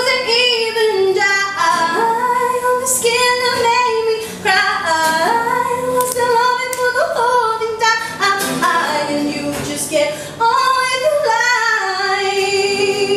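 A woman singing a melody with long held notes that slide between pitches.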